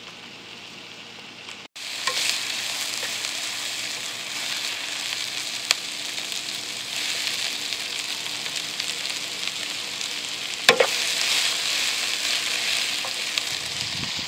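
Sliced onions frying in oil in a pan, a steady sizzle that starts suddenly about two seconds in, with two sharp clicks along the way; the onions are turning light golden brown.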